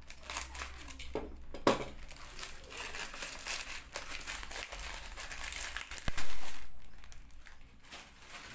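Black plastic mailer bag crinkling and rustling as it is cut with a utility knife and pulled open by hand around a cardboard box. A sharp click comes a little under two seconds in, and a loud knock about six seconds in.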